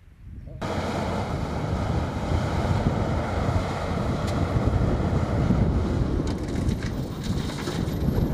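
XCMG LW300F wheel loader's diesel engine running under load as it digs earth and lifts a bucketful onto a dump truck: a steady low rumble that starts about half a second in.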